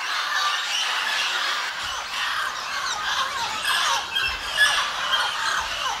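A large mixed flock of parrots, mealy amazons and blue-headed parrots, squawking all at once: a dense din of many overlapping harsh calls.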